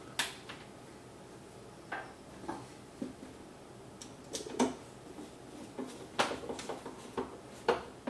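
Scattered light clicks and taps of a coffee maker's plastic housing being handled while a screw is driven in with a screwdriver, about ten small knocks at irregular spacing, more of them in the second half.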